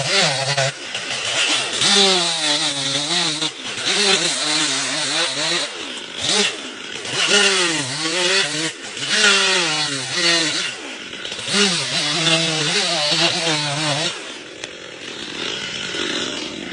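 Power tool cutting wood, its motor pitch dipping and rising over and over as it loads and frees up, with a hiss of cutting over it. About 14 seconds in the motor tone stops, leaving a quieter hiss.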